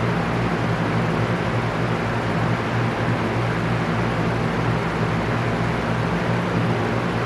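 Electric fan running steadily: an even rush of air with a constant low hum underneath.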